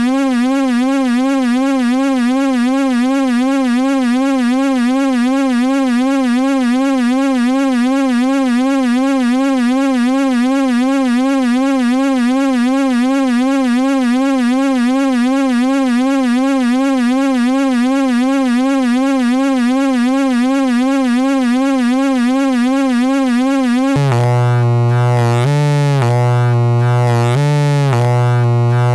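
Electronic drone: a loud, buzzy sustained tone with a fast wobble in pitch. About five seconds before the end it drops lower and starts stepping back and forth between two pitches.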